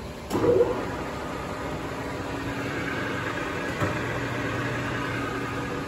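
Kingston HD-2690 lathe headstock starting up with a clunk about a third of a second in, then the spindle and gear train running steadily with a low hum and a higher gear whine. A short knock comes near four seconds in.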